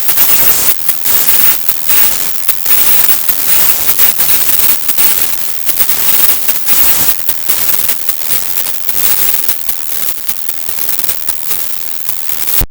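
Pop-rap music treble-boosted so far that it has become harsh hissing static with constant crackling, the vocals no longer recognisable. It cuts off suddenly at the end.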